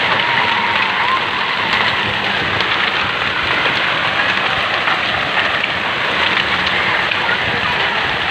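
Heavy hail and rain pelting the ground: a dense, steady hiss shot through with countless small ticks of hailstones striking.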